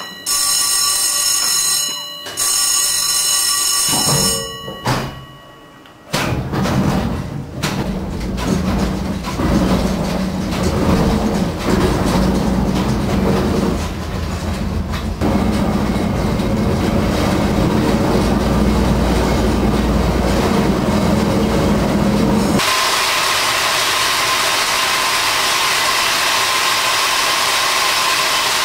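Colliery cable-haulage winch running: a rumbling mechanical noise with a steady hum, changing abruptly to a smoother, steadier whirring about three-quarters through. It is preceded for the first few seconds by a steady buzzing tone of several pitches that breaks off briefly about two seconds in.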